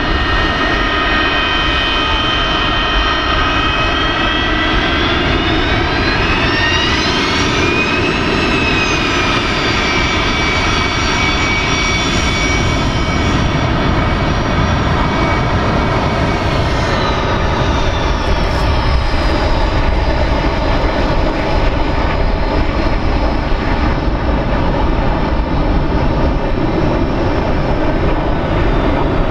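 Boeing 737-200's Pratt & Whitney JT8D turbofan engines whining and rumbling at taxi power. The whine climbs in pitch a few seconds in, then falls back a little past halfway.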